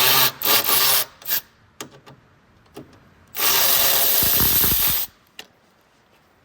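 Cordless drill running in short bursts, then a longer run of nearly two seconds.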